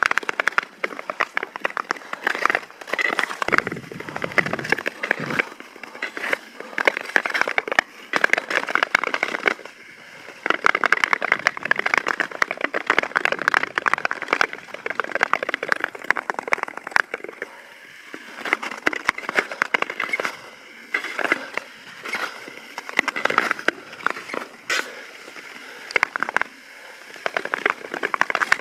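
Long-distance (Nordic tour) skate blades scraping and gliding over frosty natural lake ice: a crackly, scratchy hiss that swells with each stroke, every second or two.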